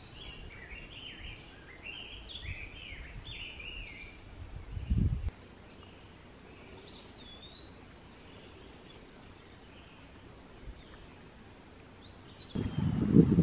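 Small songbirds chirping in a rapid run of rising and falling notes for the first few seconds, then a few single high whistled calls. A short low rumble on the microphone comes about five seconds in, and a louder one starts near the end.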